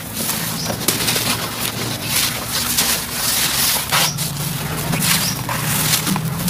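Hands crumbling a gritty sand-cement block, with dense crackling, crunching and grit pouring back into a basin of crumbs. A low hum comes and goes beneath it.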